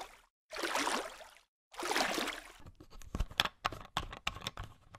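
Developer solution sloshing in short bursts in a plastic basin as a printed circuit board is rocked in it by hand. From about halfway there is a run of sharp, irregular clicks and taps as a small plastic bottle is handled and opened.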